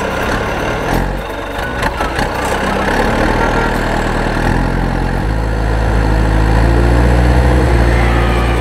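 Cartoon engine sound effect for a small JCB loader driving, a steady low running note that steps up in pitch twice as it moves off down the ramp.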